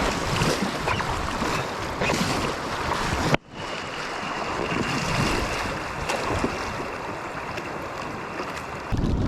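Steady rushing of a stream's flowing water, with wind noise. There is a sudden cut about a third of the way in to a duller, muffled stretch, and another abrupt change to a louder, deeper rush near the end.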